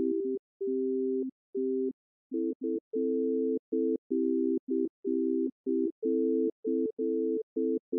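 Synthesizer playing a quick run of simple chords in pure, organ-like tones, three or four notes at a time, each chord switching on and off abruptly with no fade. It is a short popular-style chord pattern moving between a major key and its relative minor.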